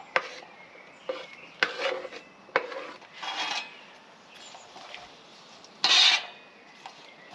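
A metal cooking utensil clinking and scraping against a pan while sausages and potatoes are stirred: three sharp clinks in the first few seconds, short scraping strokes, and one louder scrape about six seconds in.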